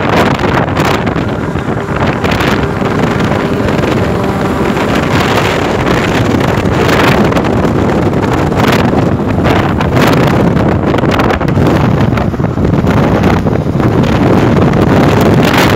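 Wind and road noise of a car driving at highway speed, a loud steady rush with uneven gusts buffeting the microphone.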